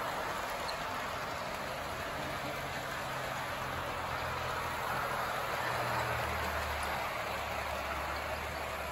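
Model trains running around a tabletop layout: a steady whirring rumble of the cars' wheels on the track and their electric motors, with a low hum that shifts lower about six seconds in.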